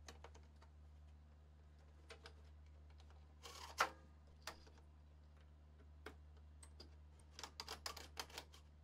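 Faint handling sounds of a cable being routed through plastic wiring duct in an electrical cabinet: scattered light clicks and rustles, a louder scrape about three and a half seconds in, and a quick run of clicks near the end, over a low steady hum.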